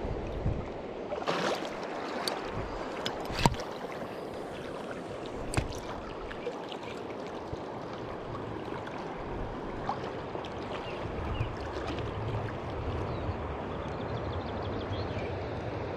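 River water flowing and gurgling steadily, with a few sharp clicks in the first six seconds, the loudest about three and a half seconds in.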